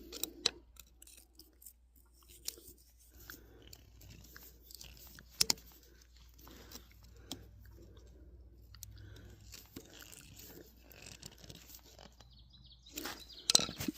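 Faint scattered clicks and scrapes of a hose clamp being tightened by hand on the Harley Sportster's oil drain hose, with a few sharper metal ticks.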